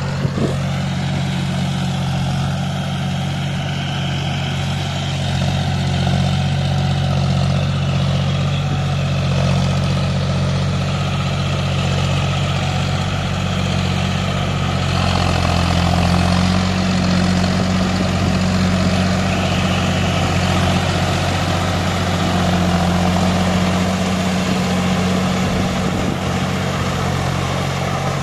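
John Deere 5050 D tractor's three-cylinder diesel engine running steadily under load as it pulls a rotary tiller through flooded paddy mud, growing a little louder and fuller about halfway through as it comes close.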